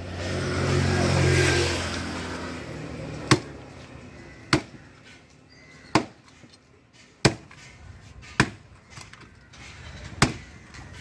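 Heavy chopping blows on cobia steaks on a wooden log chopping block: six or seven sharp strikes, about one every second and a quarter. A motor vehicle passes during the first couple of seconds, before the strikes begin.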